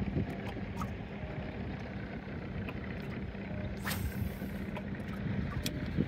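Boat motor running with a steady low hum over rumbling noise, with a few light knocks. The hum drops away about five seconds in.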